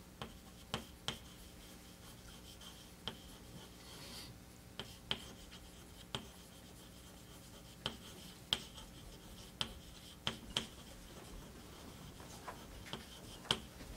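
Quiet room with a faint steady hum, broken by scattered small sharp clicks and light rubbing, about fifteen at irregular times: small handling noises such as paper and pen.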